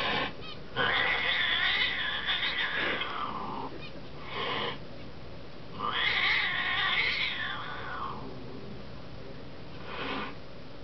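Angry domestic cat yowling: two long, wavering, drawn-out yowls, with short meow-like calls before, between and after them.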